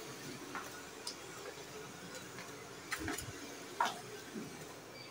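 Faint rustling and a few soft taps as a stiffened fabric cuff is handled and slid across the metal bed of an industrial sewing machine into place under the needle.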